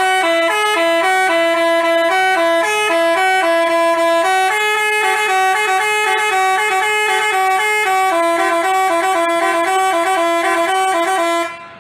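Basuri telolet bus horn, a multi-tone musical horn, playing a melody of quick stepping notes. It is loud and steady in level and cuts off abruptly near the end.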